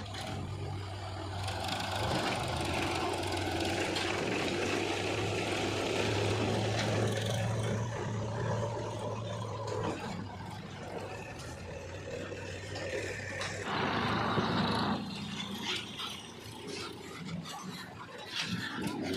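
A heavy diesel machine's engine running with a steady low hum and rattling. The hum fades about 13 s in, and a short hiss comes about 14 s in.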